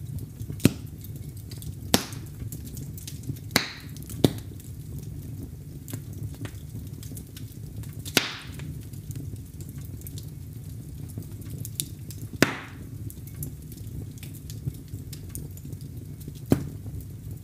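Wood fire burning in a fireplace: a steady low flame rumble with about seven sharp pops from the burning logs, spaced a few seconds apart, three of them followed by a brief hiss.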